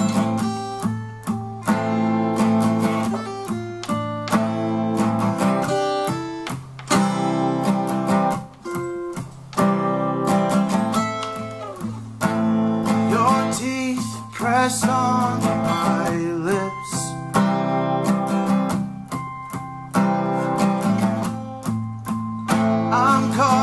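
Two acoustic guitars playing a song together, one strumming chords and the other picking notes over them, with a man's voice singing along near the end.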